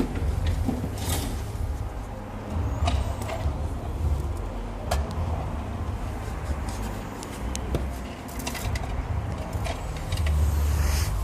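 Scattered light clicks and taps of small parts and tools being handled, over a steady low rumble.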